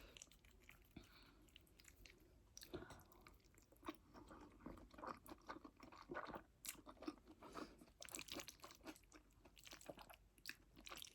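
Faint close-miked chewing: many small, irregular wet clicks and crunches of a person eating.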